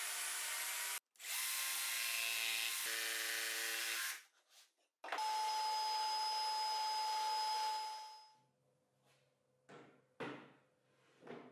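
Power tools working plywood in turn: a table saw running for about a second, then another power tool running steadily for about three seconds. Next comes an oscillating spindle sander, running with a steady high note for about three seconds before trailing off. Near the end there are a few light knocks as plywood parts are handled.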